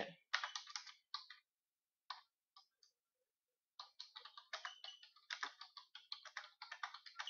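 Computer keyboard typing, faint: a short flurry of key taps in the first second or so, a pause of about two seconds, then fast, continuous typing from about four seconds in.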